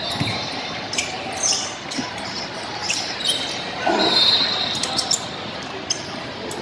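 Basketball game play on a hardwood court: a ball being dribbled, with short, sharp sneaker squeaks over a steady background hum of the hall. The loudest squeaks come about three to four seconds in.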